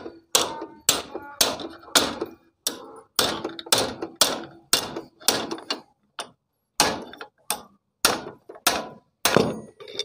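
Steady hammer blows, about two a second with a short pause around six seconds in, knocking a Honda CD-70's front fork leg down and out of its clamps. Each blow is sharp with a brief ring.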